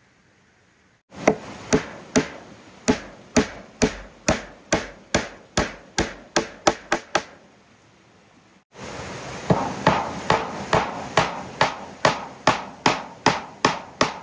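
Repeated sharp strikes of a tool on wood, about two a second, in two runs with a short break near the middle.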